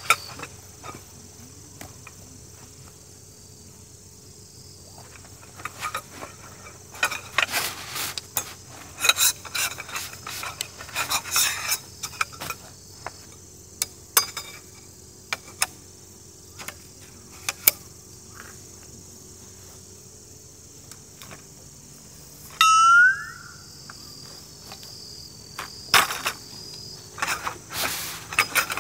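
Camping gear being handled and set up: scattered clicks, knocks and light metal clatter over a steady chorus of insects. About 23 seconds in comes a short, loud rising squeal.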